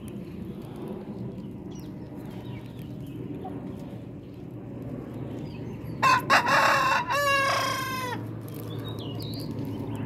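A rooster crowing once, about six seconds in: a two-second call whose last note falls in pitch. A steady low hum runs underneath.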